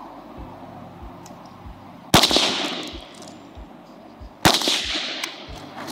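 Two rifle shots from an Arsenal SLR-104FR, a semi-automatic AK-74-pattern rifle in 5.45x39, about two and a half seconds apart. Each is a sharp crack followed by an echo that trails off.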